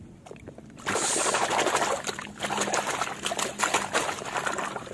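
Muddy water in a plastic tub splashing and sloshing as a hand swishes a small plastic toy vigorously through it. The splashing starts loudly about a second in, after a moment of quieter dripping and handling.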